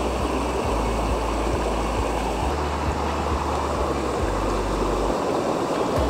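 Shallow mountain stream rushing steadily over rocks and small cascades, with a low rumble coming and going underneath.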